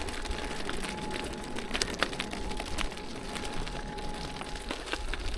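Push bike ridden over a rough, rocky track: scattered clicks and rattles over a low rumble of wind on the microphone, with a faint steady whine through most of it.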